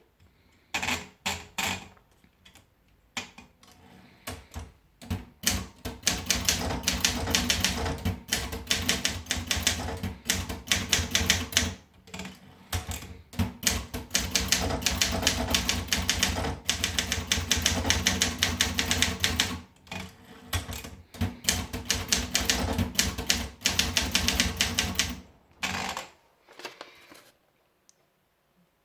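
Olympia Monica manual portable typewriter being typed on. A few scattered keystrokes give way to fast, steady typing with a couple of short pauses, which thins to a few last strokes near the end.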